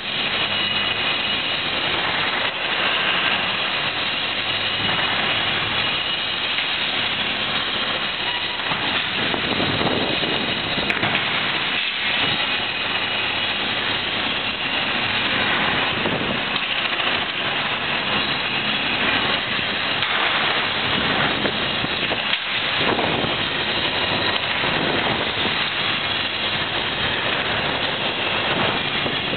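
Heavy construction machinery at a demolition site running steadily and loudly, a continuous diesel engine noise with no breaks. This is the daytime building-site noise complained about as a nuisance.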